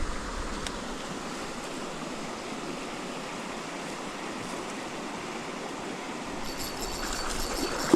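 Flowing river water rushing steadily. Faint high ticking joins in near the end.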